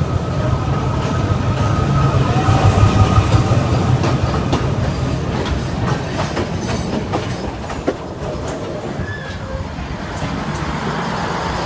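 Yangon Circle Train running along the track: a steady rumble, wheels clattering over the rails, and a thin wheel squeal in the first few seconds.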